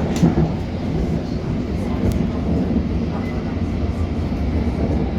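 Steady running noise of a London Underground S8 Stock train heard from inside the car: a dense low rumble of wheels on rail, with two sharp clicks, one just after the start and one about two seconds in.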